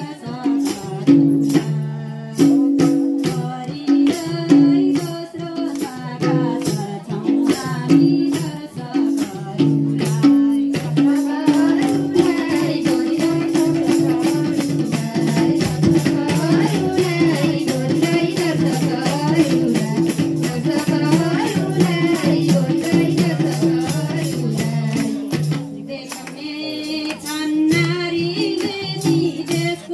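Nepali Teej dance song playing, with a steady percussion beat, a jingling rattle and held low accompanying tones. A singing voice carries the melody through the middle, and the music drops briefly in loudness a few seconds before the end.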